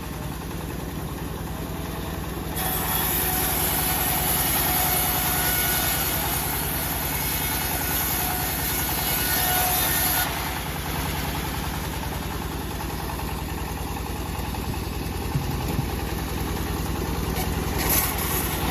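Homemade bandsaw sawmill running with its engine steady throughout. A few seconds in, the blade cuts through a teak log for about eight seconds, adding a loud, hissy sawing noise that stops suddenly, leaving the engine running.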